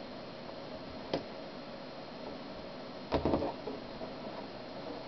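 Straight pins and fabric handled on a wooden tabletop while two collar pieces are pinned together: one light tick about a second in, then a short cluster of clicks and taps a little past halfway, over a steady faint room hiss.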